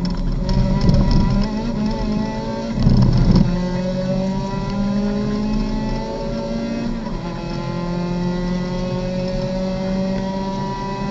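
Racing car's engine heard from inside the cockpit, accelerating hard with its pitch climbing, dropping at an upshift about seven seconds in, then climbing again. Two loud, rough rumbles break through about one and three seconds in.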